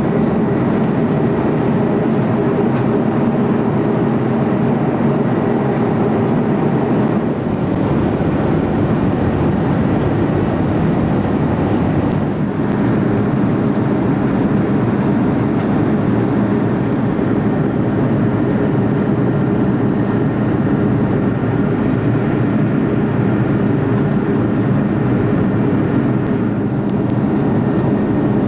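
Steady cabin noise of an Airbus twin-jet airliner in cruise or descent: the even rush of airflow and engine noise heard from inside the passenger cabin, with a faint steady high tone above it.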